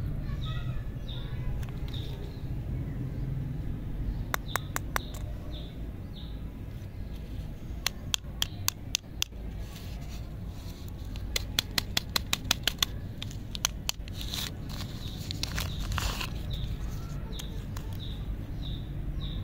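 Lollipop wrappers crinkling and crackling as they are unwrapped by hand, in several quick runs of sharp clicks. Under them run a low steady rumble and faint short high chirps, repeating.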